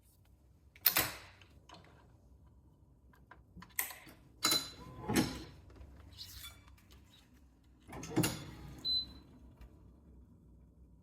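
Sharp clicks and knocks of tools and clamps while a badminton racquet is strung on a stringing machine, about six separate strokes, a couple with a brief metallic ring.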